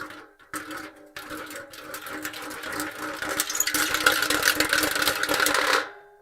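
Metal car hubcap rolling and spinning on concrete with a hollow metallic clatter that grows faster and louder as it wobbles down. It stops abruptly about six seconds in, with a short ring as it settles flat.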